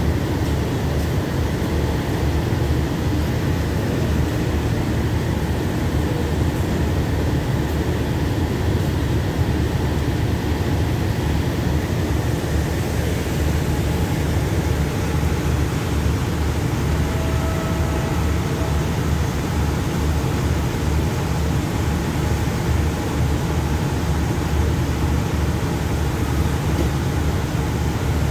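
Steady low rumble of a stationary diesel passenger train idling at the platform.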